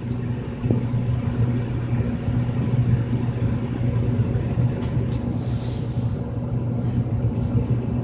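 Trane TUD 80% gas furnace running in heat mode: a steady low hum and rumble from the blower and burners.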